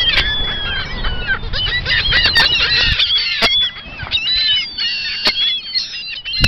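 A flock of gulls calling: many short squawks crowding over one another, with a low rumble under the first three seconds and a few sharp clicks.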